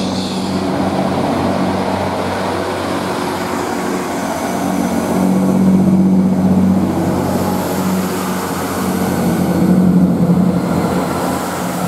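Great Western Railway Class 165 diesel multiple unit's underfloor diesel engines running steadily at the platform, a low engine hum that swells twice, about halfway through and near the end.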